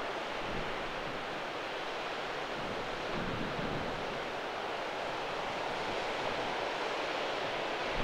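Steady rush of wind and sea surf, with gusts buffeting the microphone in a low rumble.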